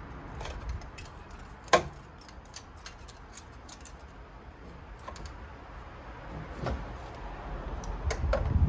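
Small metallic clicks and taps of tools and parts being handled while taking apart an iMac's aluminium stand, with one sharp knock about two seconds in and heavier handling noise building near the end.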